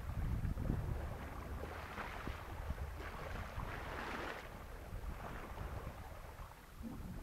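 Water rushing and splashing along a sailing canoe's hull under way in choppy sea, with wind buffeting the microphone as a steady low rumble; the splashing swells about two and four seconds in.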